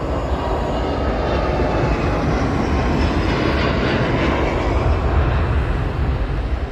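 Airbus A330-900's Rolls-Royce Trent 7000 turbofans running at takeoff thrust as the jet lifts off and climbs out: a loud, steady jet roar with a faint whine that falls in pitch as it passes.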